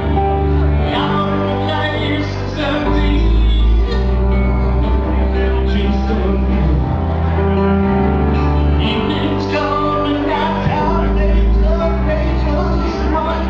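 Live band playing a song with singing over piano, violin and bowed strings, and an upright bass underneath.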